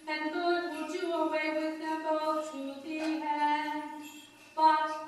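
Byzantine liturgical chant sung in a woman's voice, in phrases of held notes that step up and down, with a short break and a new phrase starting about four and a half seconds in.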